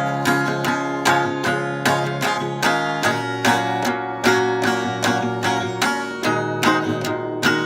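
Instrumental music: a plucked acoustic guitar playing notes in a steady, even rhythm, with no singing.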